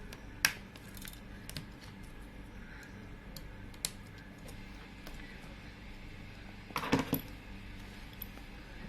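Small tools and phone parts clicking and tapping as they are handled during a phone teardown: a sharp click about half a second in, another near four seconds, and a short cluster of knocks around seven seconds, over a steady low hum.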